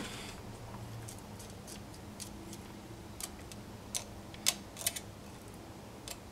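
Scattered light metallic clicks and ticks from a feeler gauge blade being slipped and tapped against a machinist straight edge laid across an engine block deck, checking it for warpage; the sharpest click comes about four and a half seconds in. A low steady hum runs underneath.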